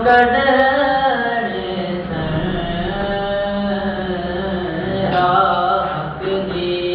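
A solo voice singing long, held notes that slide and bend between pitches.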